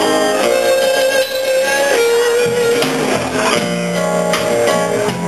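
Live band music with guitar to the fore, on a poor-quality recording.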